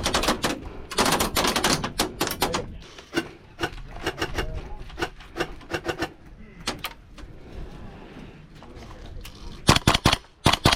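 WE-Tech SCAR-L gas blowback airsoft rifle firing rapid bursts, each shot a sharp clack of the cycling bolt, with dense bursts near the start and again near the end. Scattered quieter pops from other airsoft guns come in between.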